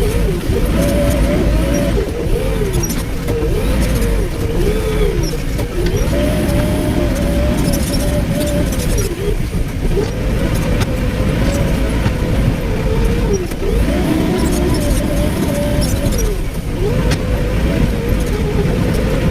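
JCB excavator's diesel engine working under hydraulic load, its pitch repeatedly dipping and recovering every few seconds as the machine works, with scattered sharp clicks and knocks over it.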